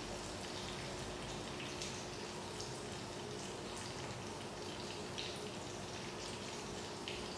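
Food frying in oil in a pan: a steady sizzle with scattered small pops and crackles.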